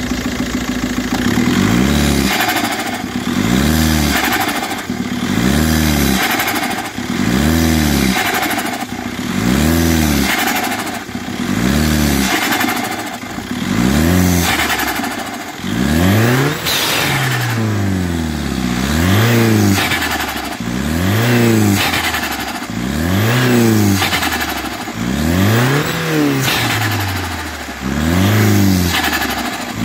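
Volkswagen Passat B5.5's 1.9 TDI diesel engine blipped over and over, about one rev every second and a half, each rev climbing and dropping back. Turbo flutter comes as the throttle is let off.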